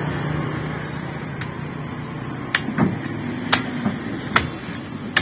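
Busy outdoor background with a motor vehicle engine running. In the second half there are four sharp knocks, about a second apart.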